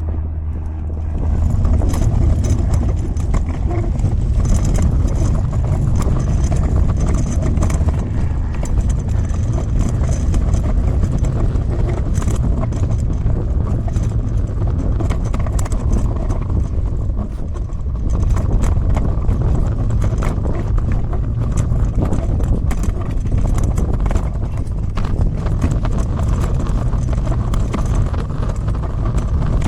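Wagon wheels rolling and rattling, a steady rumble thick with small clicks and knocks that eases briefly about two-thirds through.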